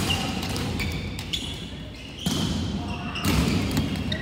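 Volleyballs being struck and thudding on the court at irregular intervals, each knock ringing on in a large reverberant sports hall, over background chatter of players.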